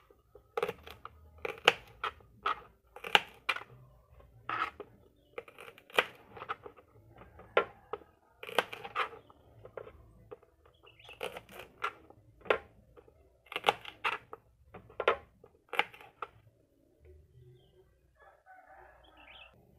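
Kitchen knife cutting shallots and garlic on a plastic cutting board: irregular sharp taps as the blade strikes the board, with short pauses between cuts and fainter near the end.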